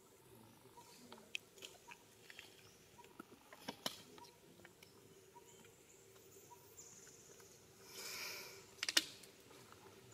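Baby macaque chewing and handling a banana peel: faint, scattered wet clicks and smacks. A brief rustle comes about 8 s in, followed by a quick cluster of sharper clicks, the loudest sounds.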